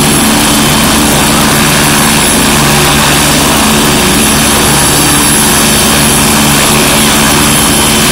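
Helicopter running on the ground before lift-off: a steady high whine over a fast, even low rotor chop and a broad rushing hiss, unchanging throughout.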